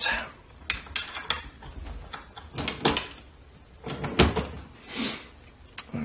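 Scattered knocks and clunks of metal being handled on a workbench, about half a dozen, the loudest about four seconds in. A small bench vise is being moved out of the way and the steel case of a Western Electric 30C lock turned over in the hands.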